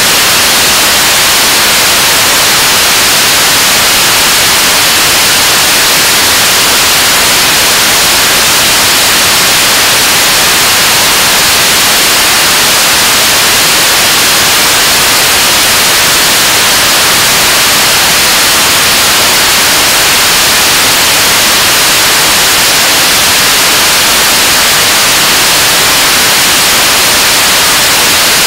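Korean launch vehicle's 7-tonne-class kerosene/liquid-oxygen rocket engine firing in a steady burn during a 580-second hot-fire test. Its exhaust makes a loud, even hiss-like noise that holds at one level throughout.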